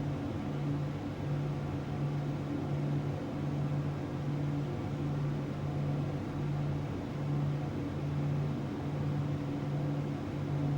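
Steady rushing airflow noise over a low hum that throbs about once a second.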